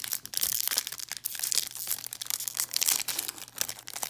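Crinkling and crackling of a trading card pack's foil wrapper as it is handled and torn open, a dense, irregular crackle throughout.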